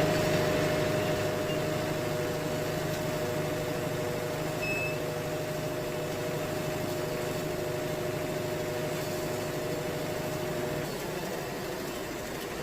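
Wood-Mizer band sawmill running steadily, its engine and blade making a constant mechanical drone with a steady whine that drops away near the end.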